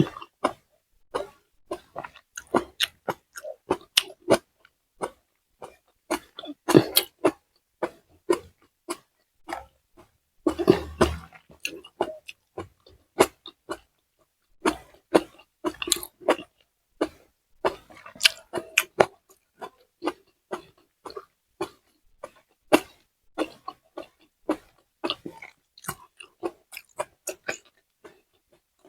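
Close-up eating sounds of a person chewing and biting food: irregular wet mouth clicks and smacks, with two longer, louder mouthfuls about a third of the way in and again just after.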